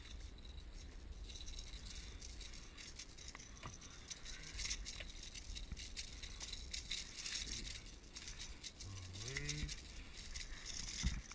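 Rapid, irregular rattling and clicking from the fishing tackle and a small bass as the fish is reeled in, swung aboard and handled in a kayak. A brief rising tone comes near the end.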